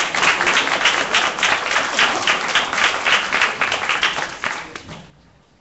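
Audience applauding, loud and dense, tapering off and stopping about five seconds in.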